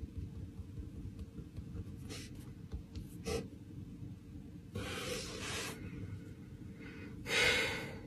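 Pen writing on paper in a notebook: a few short scratchy strokes, a longer stroke about five seconds in, and a louder brush across the page near the end, over a low steady hum.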